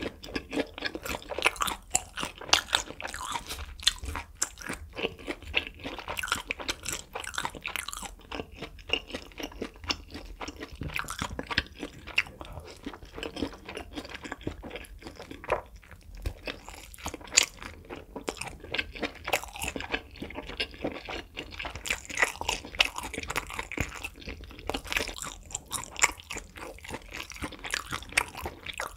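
Close-miked eating: chewing and crunching of beef intestines and fire-noodle wraps, a dense, continuous run of sharp crunches and clicks.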